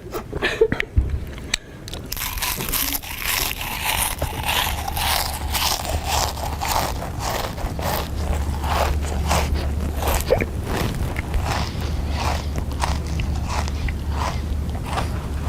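Loud, rapid crunching of someone chewing crisp snack chips, with a steady low hum underneath.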